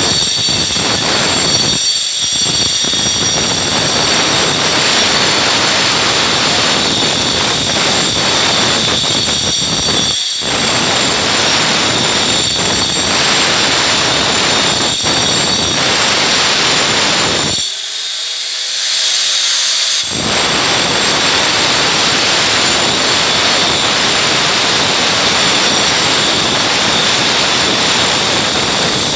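Electric angle grinder cutting into masonry, a loud steady grinding noise with a high whine. The cut eases off briefly twice, and a little past the middle the grinding drops away for about two seconds before resuming.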